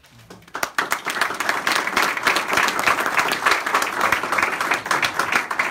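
A crowd applauding, with dense irregular clapping that starts about half a second in.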